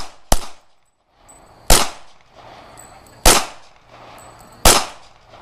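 Glock 22 pistol firing .40 S&W, four single shots spaced about a second and a half apart, each followed by a brief echo.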